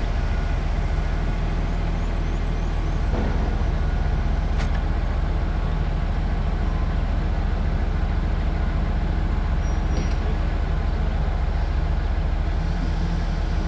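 Volvo G940 motor grader's diesel engine running steadily with a low rumble, with a single sharp click about four and a half seconds in.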